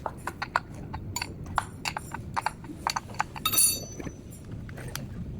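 Irregular metallic clicks and knocks of a wrench working a glued 19 mm axle screw on a handcycle wheel, with one brighter, ringing clink about three and a half seconds in.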